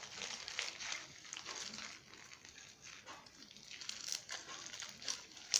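Foam-bead slime (floam) being squished and kneaded by hand, with small irregular crackling and crinkling sounds.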